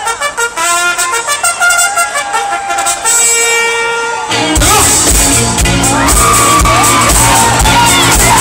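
Live band starting a pop-rock song: a horn line over light backing. Drums and bass come in about four and a half seconds in, and the full band plays on with a steady beat.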